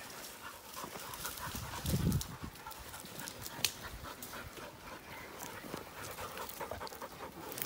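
Heavy panting while moving fast through forest undergrowth, with dry sticks and pine litter crackling and snapping underfoot, one sharper snap about three and a half seconds in and a low thump about two seconds in.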